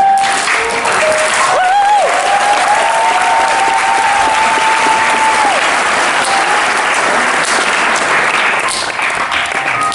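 Audience applauding and cheering, with one long held call over the clapping about two seconds in; the applause eases off near the end.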